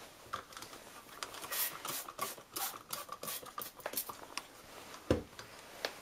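Handling noise: a run of quick scratches and clicks for about four seconds, then a single knock about five seconds in.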